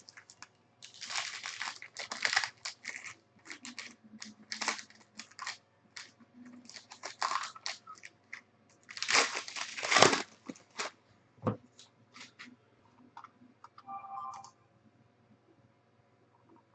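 A trading-card pack's foil wrapper being torn open and crinkled, with cards being handled, in a run of irregular crackles and rustles. The loudest tearing comes a little past halfway.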